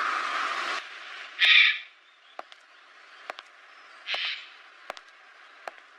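A steady rushing noise cuts off abruptly under a second in. Then come slow footsteps on stone paving, about one step a second, and a bird gives a short harsh call twice, a few seconds apart.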